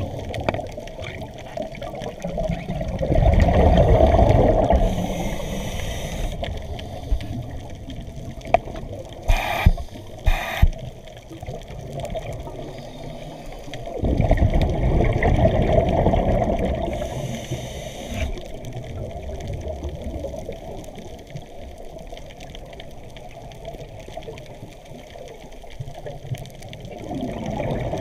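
A scuba diver's exhaled breath bubbling out of the regulator, heard underwater: two long rushes of bubbles about ten seconds apart over a steady low rumble, with a few sharp clicks between them.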